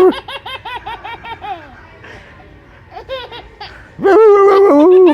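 Baby belly-laughing hysterically in a rapid run of short "ha-ha" bursts, which fade and then pick up again. Near the end a loud, high voice is held steady for about a second.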